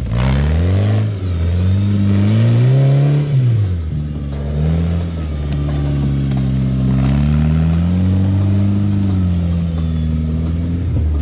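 Off-road rock crawler's engine revving as the throttle is worked: the pitch climbs over the first three seconds, drops sharply, then rises and falls gently.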